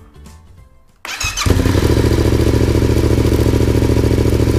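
Yamaha MT-07's 689 cc parallel-twin engine cranked on the electric starter about a second in; it catches at once and settles into a steady idle. It breathes through a cheap universal slip-on silencer with its baffle in, pushed on with play and held only by springs, a joint that leaks a little.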